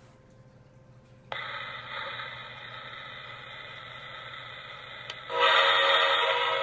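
Lionel New York Central Flyer steam locomotive's TrainSounds speaker: a steady noise comes on suddenly about a second in, then the recorded steam whistle blows loudly, a chord of several steady tones, from about five seconds in, set off by the transformer's whistle button.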